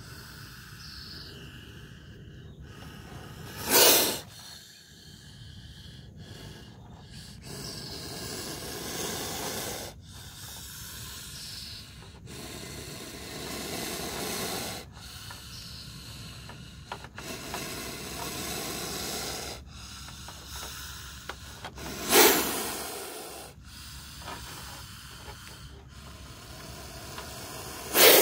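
A cobra hissing loudly three times, short sharp hisses about 4, 22 and 28 seconds in, with a faint steady rustle between them.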